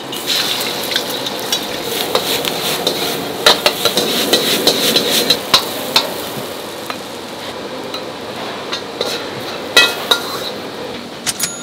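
Food sizzling in a hot pan while a metal utensil stirs and knocks against it, clattering rapidly for the first half, then a few scattered knocks.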